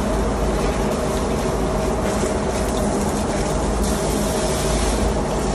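Water jet from a hand-held spray nozzle hissing against the inside of an oily water separator tank, over the steady hum of a ship's engine-room machinery. The spray hiss grows brighter about two-thirds of the way through.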